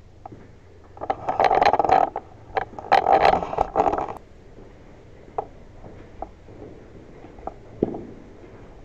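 Clothing rubbing and scraping against a body-worn camera's microphone in two rough bursts of about a second each, then a few light taps.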